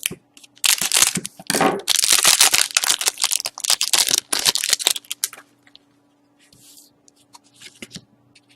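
Trading-card pack wrapper tearing and crinkling in loud, dense runs for about five seconds, then only faint scattered rustles and ticks of cards being handled.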